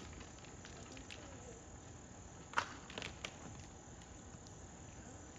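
Faint outdoor background with three short sharp clicks or taps about halfway through, the first the loudest.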